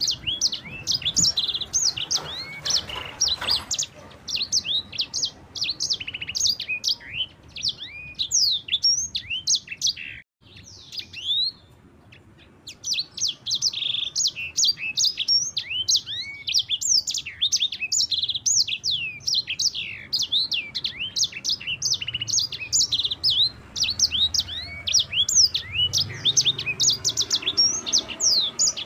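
Sanger songbird singing a fast, continuous rolling song of rapid high chirps and short sweeping notes, with a short pause about ten seconds in.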